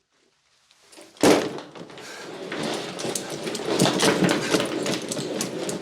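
Dead silence, then about a second in a sudden knock followed by continuous rustling with many small clicks and knocks.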